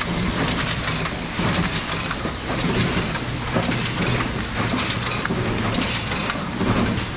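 Automatic seed packet filling machine running: a steady rapid mechanical clatter from its packet-opening, filling, gluing and folding mechanisms, over an even low hum.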